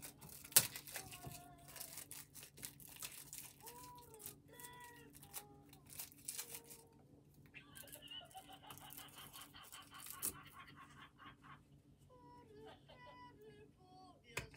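Faint scattered clicks and crinkling, with short wavering vocal sounds, and a higher, wavering cry-like sound for about three seconds in the middle.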